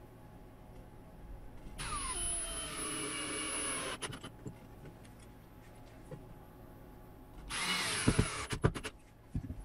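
Einhell cordless drill-driver driving screws into chipboard in two runs, a longer one of about two seconds with its pitch falling at the start and a shorter one near the end, followed by a few sharp clicks.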